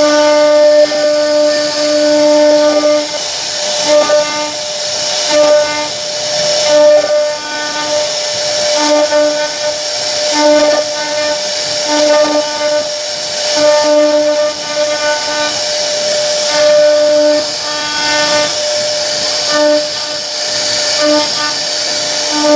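CNC router spindle running while its bit carves wood: a steady pitched whine that drops in and out every half second or so as the cutter works, over a continuous high rushing noise of the cut.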